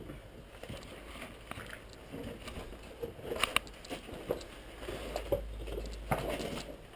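Irregular scuffs, scrapes and clicks of a person crawling through a tight gap between boulders: hands, clothing and shoes rubbing and knocking on rock, with a few louder scrapes about three and a half seconds in and again near six seconds.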